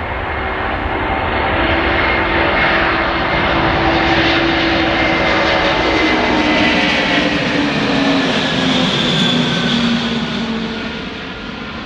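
A large jet aircraft passing close by. The engine noise swells, holds for several seconds, then fades, and its whining tones slide lower in pitch as it goes past.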